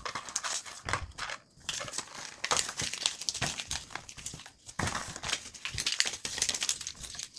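Paper being crumpled by hand into balls: a quick, irregular crinkling with a couple of brief pauses.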